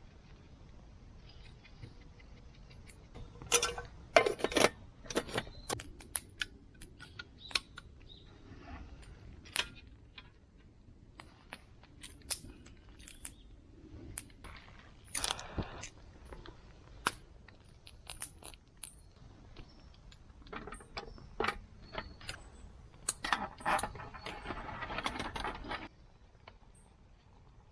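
Irregular clicks, clinks and knocks of small hard objects being handled, with a denser rustling scrape near the end.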